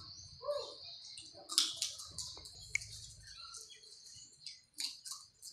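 Birds chirping in short, sharp calls over a steady high hiss.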